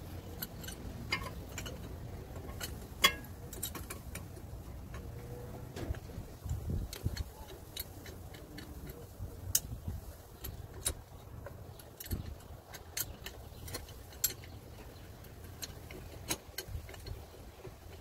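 Scattered metallic clicks and light rattling as a brake caliper piston compression tool and an old brake pad are handled and fitted against a car's front brake caliper, with one sharp click about three seconds in.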